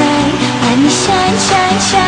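Electronic dance music with a steady beat and a melody.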